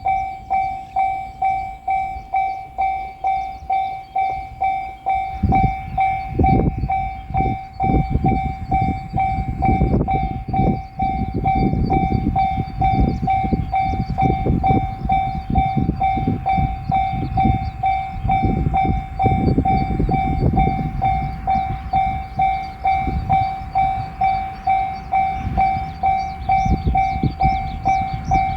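A Japanese level-crossing bell ringing steadily in an even kan-kan beat, about two strokes a second. About five seconds in, a JR Shikoku 7200 series electric train passes over the crossing, its wheels rumbling and clattering, and it is still passing near the end.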